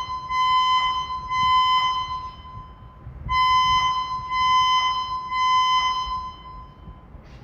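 Electronic building emergency alarm sounding a steady high-pitched tone with a pulsing beat about twice a second. It sounds in two blocks of about three seconds, with a short break of about a second between them.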